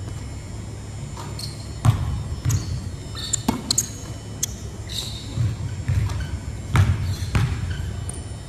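A basketball bouncing and thudding on a hardwood gym floor at irregular intervals, with short high sneaker squeaks, echoing in a large gym. The loudest bounces come about two seconds in and near seven seconds.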